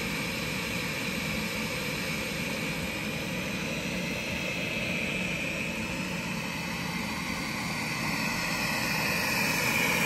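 Shellbot SL60 robot vacuum running on carpet at its maximum (level 4) suction: a steady fan hum with a high whine over it, getting a little louder near the end.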